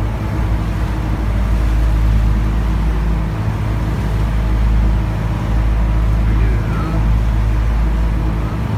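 Boat engine running steadily with a deep low drone, under the rush of water churned up by the hull and wake.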